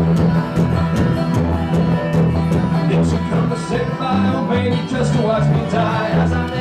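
Live bluegrass string band playing the instrumental opening of a song: quick picked guitar notes over a steady line of deep bass notes.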